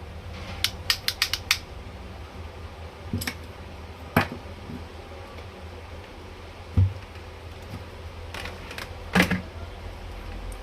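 Sharp clicks and taps of hands and tools working on a toy electric scooter's plastic parts: a quick run of about six clicks at the start, single clicks near three and four seconds in, a dull thump near seven seconds, and a few more clicks near the end, over a steady low hum.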